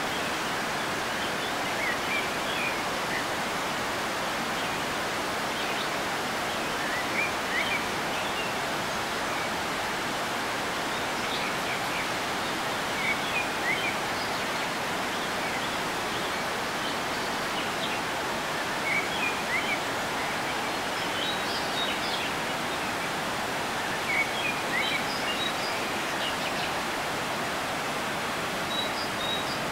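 A swollen river in flood rushing over granite rapids: a steady, even rushing noise. Short high chirps come every few seconds.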